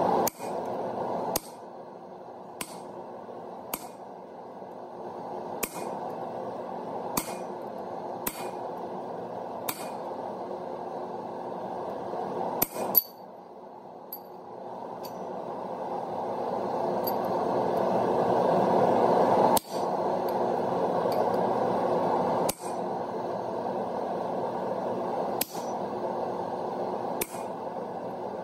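Hammer blows on a hand-held chisel set into a forged steel leaf on the anvil, cutting its veins: a dozen or so single sharp metallic strikes a second or two apart, with a longer pause in the middle. A steady rushing noise runs underneath.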